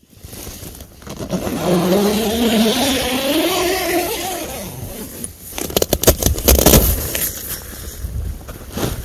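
A person's long, drawn-out wordless vocal sound, its pitch wavering and slowly rising over about three seconds. It is followed about five seconds in by a loud spell of rustling and wind buffeting the microphone.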